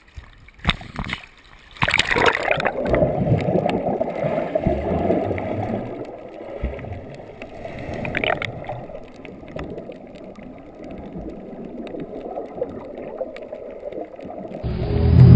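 Small splashes as the camera breaks the sea surface, then about two seconds in the sudden muffled rush of churning water and bubbles heard underwater, slowly fading. Music comes in loudly near the end.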